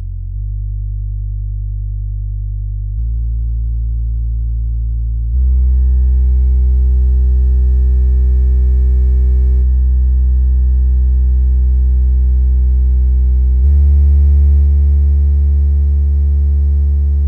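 Soundstream USB-10P under-seat powered subwoofer, a 10-inch driver with two passive radiators, playing steady bass test tones for a sound-pressure-level test. Each tone is held for a few seconds before it steps to the next, and the steps grow louder. The microphone is very close to the enclosure.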